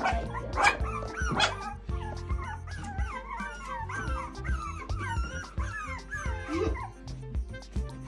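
A litter of puppies whining and yipping together in many short, wavering high cries, the hungry calls of pups waiting to be fed, over background music.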